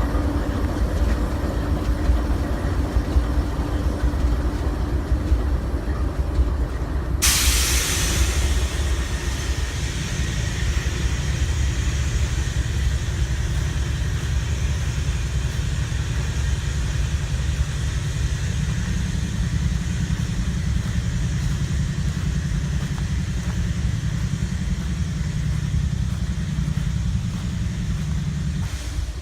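CSX freight train rumbling steadily as it runs by, with a hiss that comes in suddenly about seven seconds in and continues.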